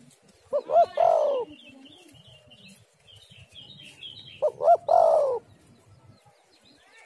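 Spotted dove cooing twice, about four seconds apart. Each call is two quick short notes running into a longer falling coo. Faint high chirps of small birds come between the calls.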